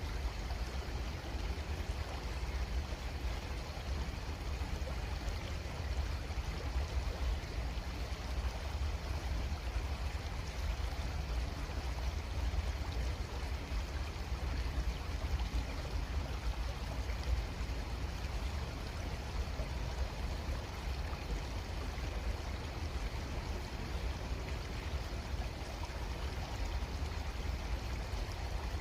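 Creek water running steadily, an even rushing noise with a deep low rumble underneath.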